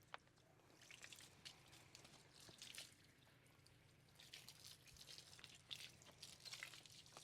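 Faint, irregular splashing and dripping of hose water on a wet pony's coat.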